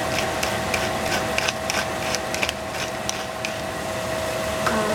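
Seasoning shaker being shaken over a frying pan: a run of quick, irregular ticks that stops about three and a half seconds in, over a steady hiss and a faint hum.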